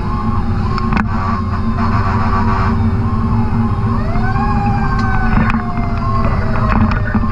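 Fire truck siren sounding over the drone of the ladder truck's Caterpillar C12 diesel engine. The siren tone rises about four seconds in, then slowly sinks.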